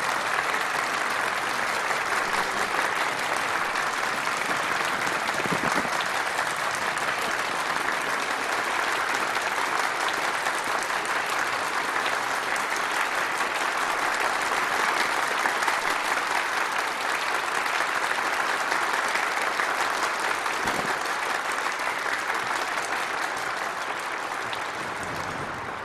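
A crowd of ballroom guests applauding steadily, easing off slightly near the end.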